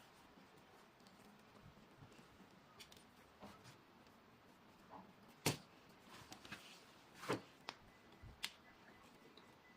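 Near silence with a few short, scattered clicks and taps, like light handling noise.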